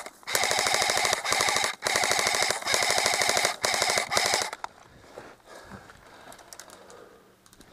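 Airsoft rifle firing on full auto in several long bursts of rapid, even shots with short breaks between them, stopping about four and a half seconds in: covering fire.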